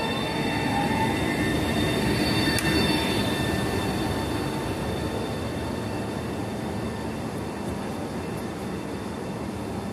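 Red Italo (NTV) high-speed train moving past along the platform: wheels rumbling on the rails with steady high whining tones over them. It is loudest two to three seconds in, then fades as the last cars go by.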